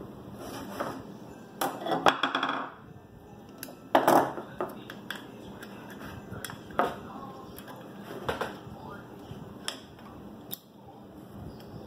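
Hands handling a wooden beehive frame and a beeswax foundation sheet on a wooden table: scattered taps, knocks and clicks, louder around two and four seconds in.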